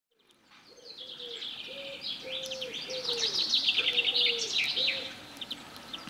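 Small songbirds twittering and trilling together, fading in over the first second and busiest in the middle, with a dove cooing underneath in a run of about six or seven low notes.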